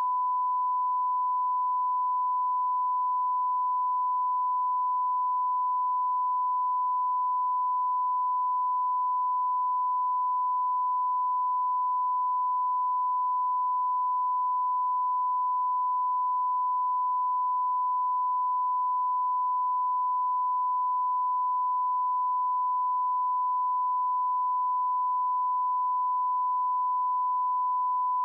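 Steady 1 kHz sine line-up tone, one unbroken pitch, the reference tone that runs with colour bars at the head of a broadcast tape for setting audio levels.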